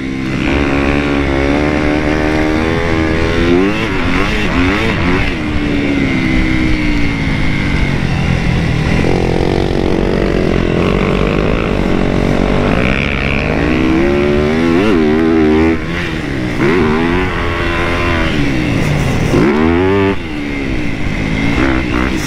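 Dirt bike engine heard from on the bike, revving up and falling back again and again as the rider accelerates, shifts and rolls off around a motocross track.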